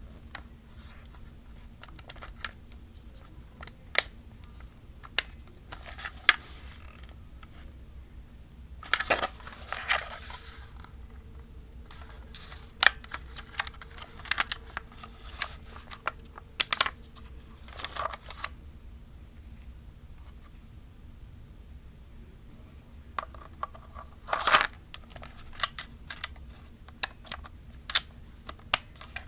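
Fingers handling a hollow plastic film camera: irregular light clicks and knocks on the plastic body, with a couple of brief rubbing sounds.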